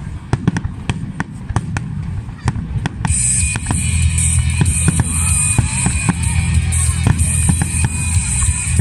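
Fireworks bursting in quick cracks and bangs for about three seconds. Then loud music with a drum beat comes in suddenly and takes over, with a few firework bangs still under it.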